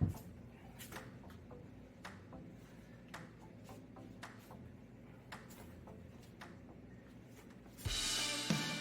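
Faint, irregular ticking and clicking over a low hum, then music with guitar comes in loudly near the end.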